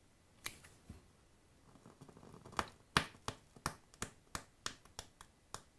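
Ticking and popping of e-liquid burning off a mesh wick: one click early, a soft rush, then a run of sharp pops about three a second that slowly fade.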